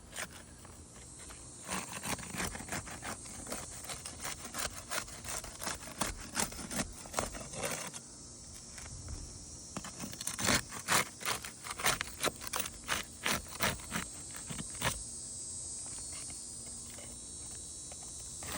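Roof shingles being pried loose from their sealant, a rapid irregular run of scrapes and crackles that thins out near the end; the shingles are brittle and tearing as they come unstuck.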